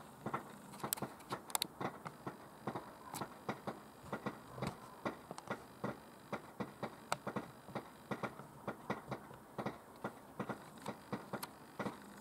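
Light, irregular clicks and taps, several a second, over a faint hiss.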